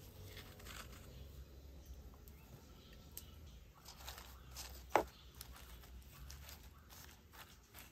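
Wooden spoon scraping and tapping in a clay pot, breaking up lumps of finger millet dough among leaves and beans. A run of soft scrapes and small clicks, with one sharper knock about five seconds in.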